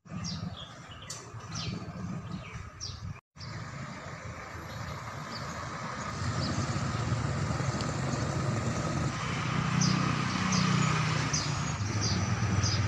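Street ambience of motor traffic running past, its rumble growing louder about halfway through, with birds giving short, repeated downward chirps at the start and again near the end. The sound cuts out completely for a moment about three seconds in.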